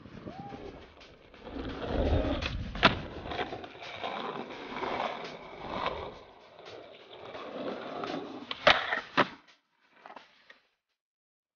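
Skateboard wheels rolling on smooth stone, with sharp clacks of the board popping and landing; the loudest clacks come about three seconds in and twice near nine seconds.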